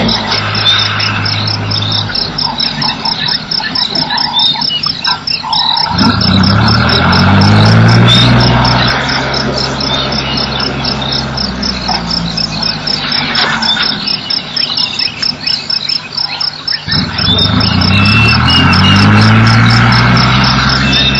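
Frogs and insects calling at a waterhole, with one call pulsing fast and high at about four to five pulses a second throughout. Low droning calls swell twice, each time sliding up in pitch as they start.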